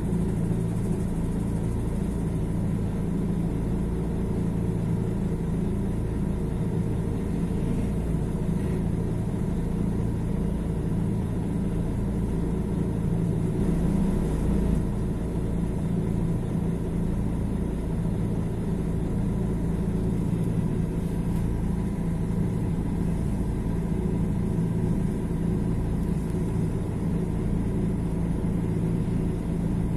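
Mercedes-Benz OM 457 LA six-cylinder turbodiesel of an O-500MDA articulated bus, running at a steady, unchanging engine speed with a low, even drone.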